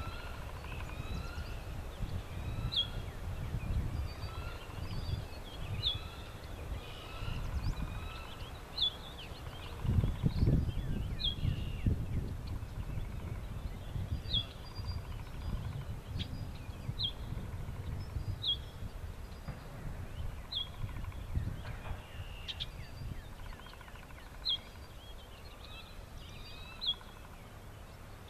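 Birds calling outdoors: a short, sharp, high note sliding downward, repeated every one to two seconds, with softer warbling calls behind it. A low rumble runs underneath and swells about ten seconds in.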